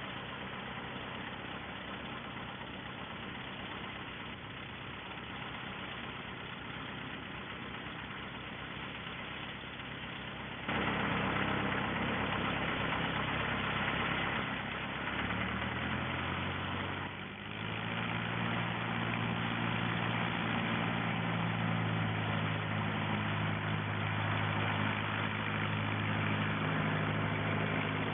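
An engine running steadily. About eleven seconds in it suddenly gets louder, and a few seconds later a steady low hum of several tones sets in.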